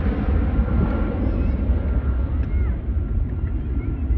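Twin-engine jet airliner climbing out after takeoff: a steady, deep rumble of jet engines with a faint thin whine above it.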